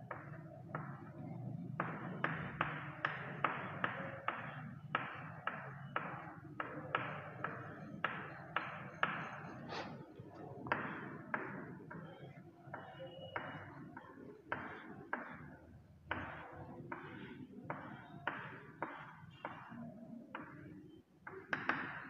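Chalk on a chalkboard, drawing a diagram: a run of short tapping and scratching strokes, two or three a second, thinning out after about twelve seconds, over a faint steady hum.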